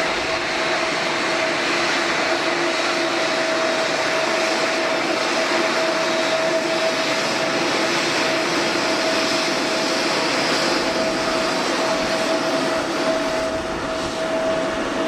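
Jet airliner engines running steadily: an even rushing noise with a constant hum underneath.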